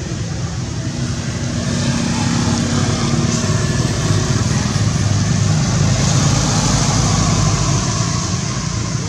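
A motor vehicle engine running steadily, growing a little louder from about two seconds in and easing off near the end.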